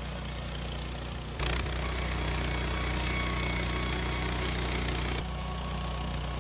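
Wood-Mizer LT15 Start sawmill running steadily, with its band blade cutting through a ponderosa pine flitch: a louder, hissing sawing noise cuts in suddenly about a second and a half in and stops suddenly near the end, as the blade leaves the wood.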